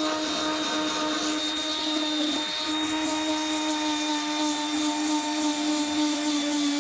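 Electric orbital sander running steadily as it sands fibreglass on a surfboard, a constant motor hum with the hiss of the pad on the glass. The edges around the stripped repair area are being sanded level before filler goes on.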